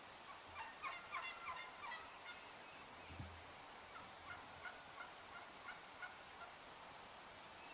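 Wild turkey gobbler gobbling: a fast rattling gobble about half a second in, lasting almost two seconds, followed by a fainter run of evenly spaced short calls.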